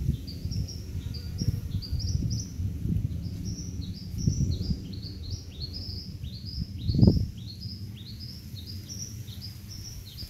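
A bird calling over and over in short rising chirps, about three a second, over a low uneven rumble, with one loud thump about seven seconds in.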